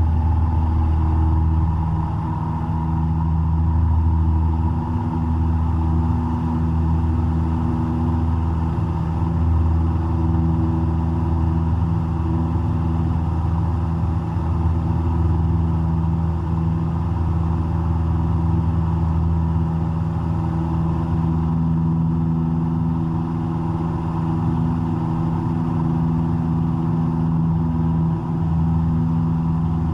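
Cessna 172's four-cylinder Lycoming piston engine and propeller running at a steady power, heard from inside the cockpit.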